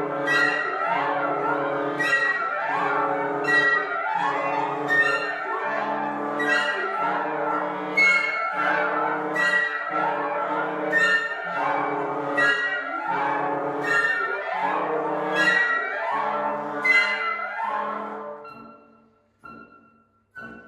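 Wind sextet of flute, oboe, French horn, saxophone, bassoon and clarinet playing a contemporary classical piece: a repeating figure of sharp accented notes about once a second over held low notes, with rising slides between them. About 18 seconds in it drops away to quiet, scattered short notes.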